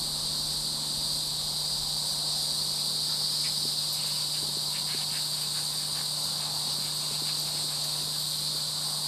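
Steady high insect buzzing from the summer field, with faint hoofbeats of a horse cantering on grass after landing a jump, heard as scattered soft thuds between about three and seven seconds in.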